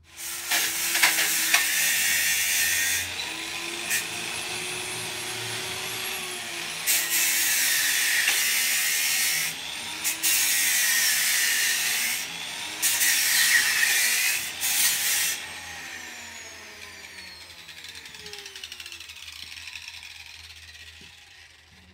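Angle grinder with a flap disc grinding the edge of a circular hole in a steel plate, in several loud passes against the metal. Near the end the motor is switched off and winds down with a falling whine.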